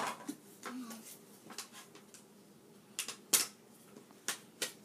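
Plastic toy track pieces being handled and pushed together: scattered sharp clicks and knocks, the loudest about three seconds in.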